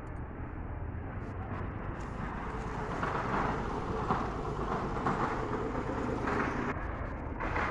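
Street traffic noise: a steady rumble with a noisy hiss that grows louder about two seconds in.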